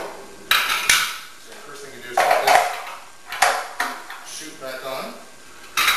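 Steel cutting discs of a commercial vegetable cutter clanking and scraping against the machine's metal housing as they are lifted out and fitted. There is a series of sharp clatters: about half a second in, a bright ping near one second, more around two, three and a half and four seconds, and another near the end.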